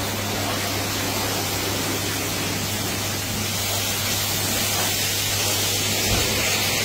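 Pressure washer spraying a car: a steady hiss of the high-pressure water jet on the bodywork, with a steady low hum underneath.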